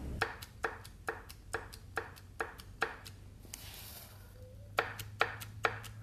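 Rocker arm on a small block Chevy 350 cylinder head being rocked back and forth by hand, clacking sharply about twice a second, with a pause of about two seconds midway. It has more play than it should, a sign of loose valvetrain lash.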